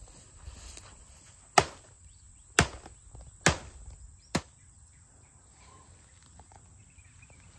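Four sharp chopping blows about a second apart, each a little quieter than the one before, likely a blade cutting into the felled palm.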